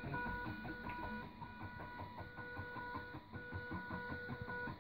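Stepper motors of DVD drive sled mechanisms in a homemade pen plotter, whining at one steady pitch in short start-stop moves, with a patter of small clicks.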